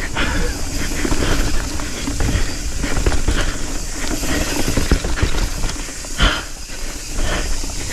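Nukeproof Scout 275 hardtail mountain bike ridden fast down a dirt trail: a steady rush of wind and tyre noise with many quick knocks and rattles as the bike hits bumps.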